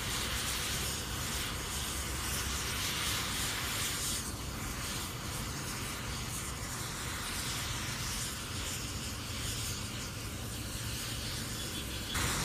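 Large mound of burning safety matches, its flames giving a steady hissing rush, a little louder near the end.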